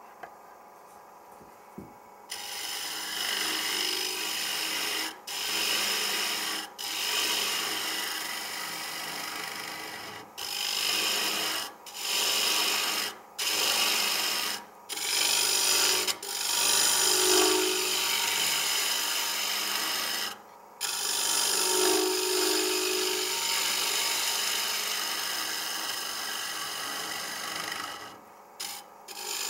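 Carbide-tipped lathe finishing tool cutting the inside of a spinning kiln-dried cherry bowl blank. The cut starts about two seconds in as a steady scraping noise, worked in repeated passes with short breaks where the tool lifts off the wood.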